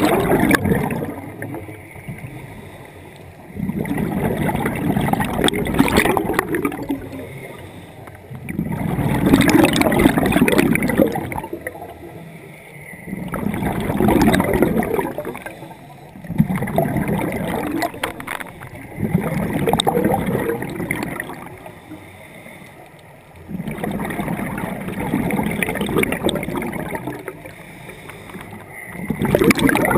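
Scuba regulator breathing underwater: bubbly, gurgling exhalations swell up every four to five seconds, each lasting a couple of seconds, with quieter breaths between.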